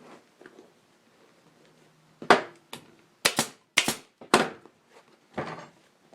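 Staple gun firing staples through the seat cover into the seat pan: about eight sharp snapping shots, some in quick pairs, as the cover is re-stapled.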